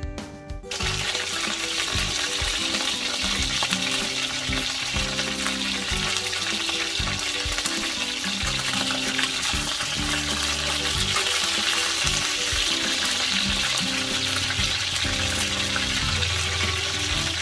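Food sizzling steadily in hot frying oil, starting suddenly under a second in, with background music underneath.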